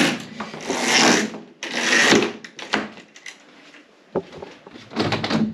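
Roller blind being raised by its bead chain pulled hand over hand. The chain runs through the blind's mechanism in two loud pulls, around one and two seconds in, followed by scattered clicks and more pulling near the end.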